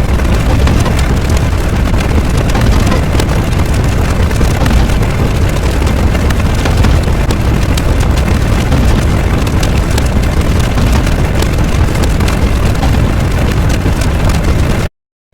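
A loud, continuous rumbling noise with dense crackling that cuts off suddenly near the end.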